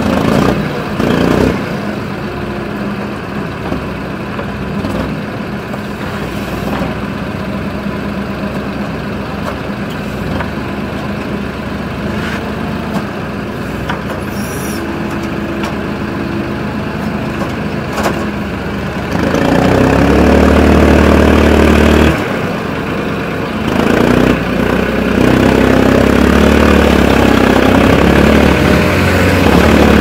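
Small excavator's engine running steadily as the boom and bucket dig, then revving up louder about two-thirds of the way in, dropping back briefly, and revving up again near the end.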